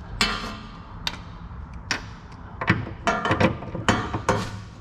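Hand tools on steel suspension bolts and brackets: a string of sharp, irregular metallic clicks and clanks, about eight in all.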